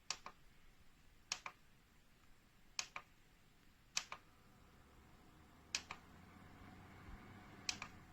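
A series of sharp clicks, six in all and several of them double, spaced roughly one to two seconds apart, over a faint steady hum.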